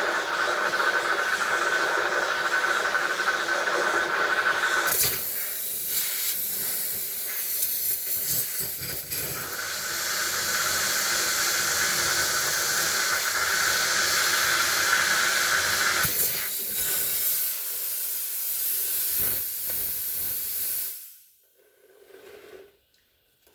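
Heat gun blowing hot air, a steady hiss with a faint motor whine, used to melt ice off a refrigerator's freezer evaporator. Its sound shifts about five seconds in and again about sixteen seconds in, and it is switched off near the end.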